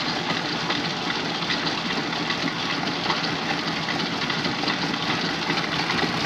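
1909 Hendey engine lathe running without load, its electric motor driving the headstock through a stitched two-ply leather flat belt: a steady, even machine noise.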